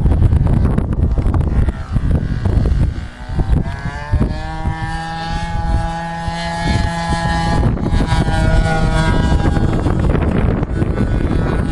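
Wind buffeting the microphone throughout. From about four seconds in, a radio-controlled model aeroplane's motor and propeller drone past at a steady pitch, rising slightly as the plane comes in and fading out about nine seconds in.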